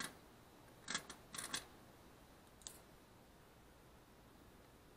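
A few light clicks and taps of small workbench tools and a small circuit board being handled. There is one click at the start, a sharper pair about a second in, a quick run of taps just after, and a faint tick later.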